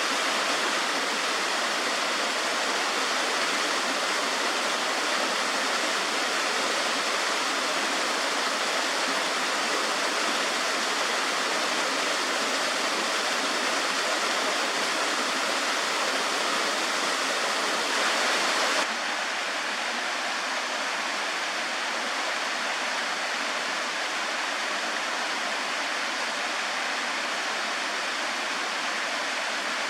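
Water from a 25-foot creek waterfall rushing steadily, a little quieter from about two-thirds of the way through.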